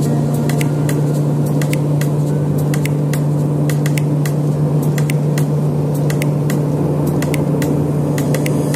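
Turboprop airliner engine and propeller droning steadily in cruise, heard inside the cabin as a constant low hum over a rushing roar. Scattered faint sharp clicks run over it.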